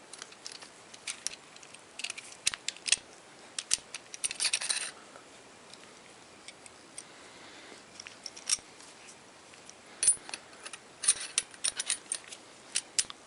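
Metal-on-metal clicks and scraping as a steel barrel clamp is worked onto a Remington 870 shotgun's magazine extension tube. Scattered sharp clicks, with a short scrape about four seconds in and a quick run of clicks near the end.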